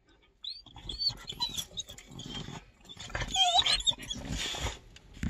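Dog vocalizing in answer to its owner: high, gliding whines and yowls mixed with low grumbling, in two bouts, the second and louder one starting about three seconds in.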